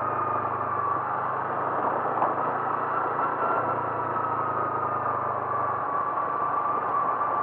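Motor vehicle running steadily on the road: a constant engine hum under road noise, with the low hum fading a little near the end.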